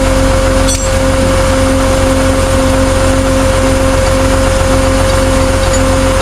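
A vehicle running steadily, with a constant hum and a low tone that pulses on and off about twice a second.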